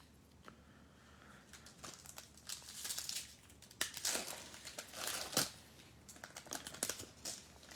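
The wrapper of a football trading-card pack crinkling and tearing as it is opened by hand, in several bursts with the loudest rips around the middle, then a few sharp ticks as the cards are handled.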